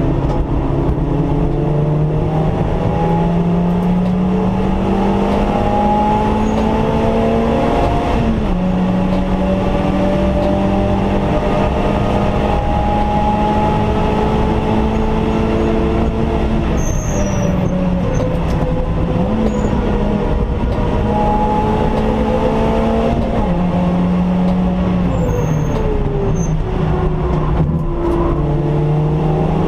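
Stage-2 tuned Suzuki Swift's engine heard from inside the cabin under load. Its pitch climbs slowly, then drops sharply twice as it shifts up, and it falls away once as the driver eases off.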